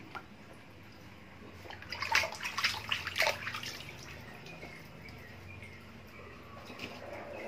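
A pet otter bathing in a plastic basin of water, with a short burst of splashing about two to three and a half seconds in, then fainter water sounds.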